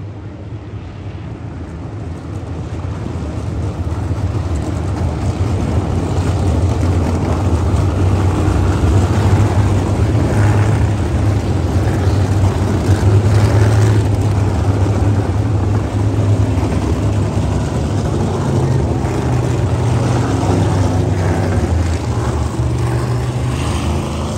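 Sprint car engines running at low speed on the dirt oval, a deep continuous drone that grows louder over the first several seconds as cars come by and eases off a little near the end.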